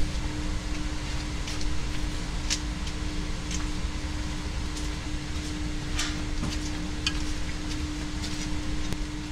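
A steady mechanical hum holding one constant tone, with a few short, sharp high-pitched ticks scattered through it.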